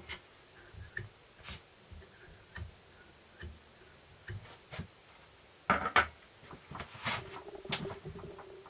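Short, irregular scrapes and clicks of a hand scraper working inside the sintered bush of a Land Rover Series 3 transfer box front output shaft, taking down a high spot left by pressing the bush in; two louder knocks about six seconds in.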